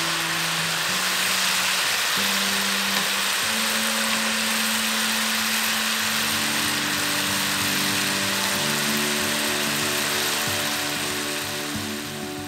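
Chicken drumsticks sizzling steadily in a frying pan in a sticky glaze, over soft background music.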